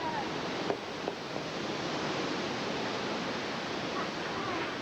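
Hurricane storm outside making a steady, even rush of wind.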